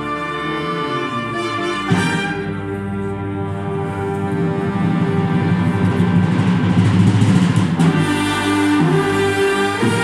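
A wind band of clarinets and brass playing together under a conductor, with a sharp accent about two seconds in and the music swelling louder toward the middle before easing near the end.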